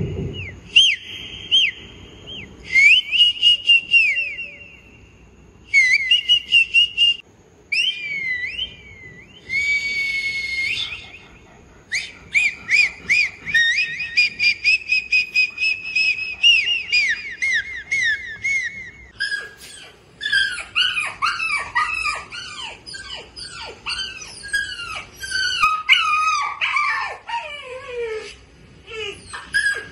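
A series of high whistled chirps and trills in short bursts with pauses between them, changing to a busier run of quick whistles that fall steeply in pitch over the last third.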